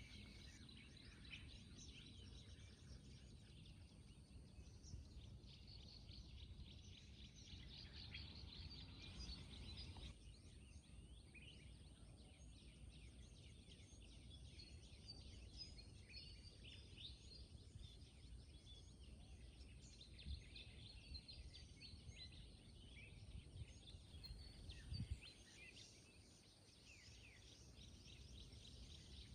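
Faint rural outdoor ambience: many small bird chirps scattered throughout over a low background rumble, with one soft low thump near the end.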